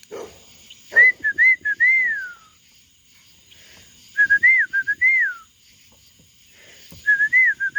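A man whistling a feeding call to his birds, which they know means food is coming: three repeated phrases, each a few short notes ending in a longer falling note.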